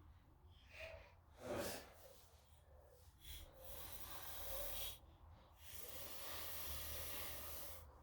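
Faint breathing close to the microphone: two long, hissy exhales, with a short, sharper sound about one and a half seconds in.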